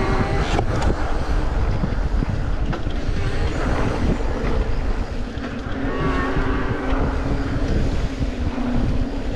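Wind buffeting the microphone during fast movement: a loud, unsteady rumble heaviest in the low end, with a faint steady tone drifting through the second half.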